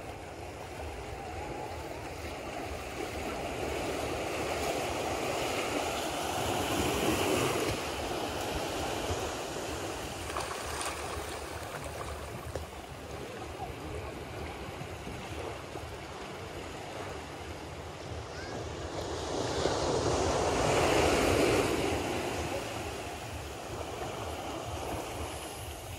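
Gentle surf washing onto a sandy shore. Two small waves swell up and fade away, one about a quarter of the way in and a louder one near the end.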